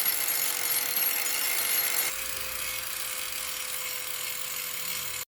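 Power grinder grinding a motorcycle's metal brake disc, trimming its size so it clears the caliper: a steady harsh grinding noise with a thin whine. About two seconds in it turns quieter, and it cuts off abruptly near the end.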